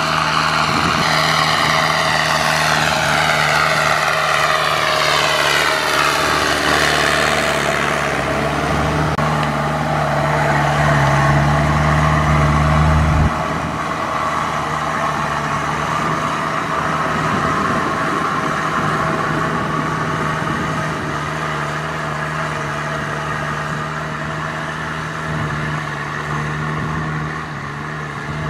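Kubota M6040SU tractor's diesel engine running steadily under working load in wet mud. A high whine falls in pitch over the first several seconds, and the sound changes abruptly about halfway through, where the tractor is pulling a rear rotary tiller.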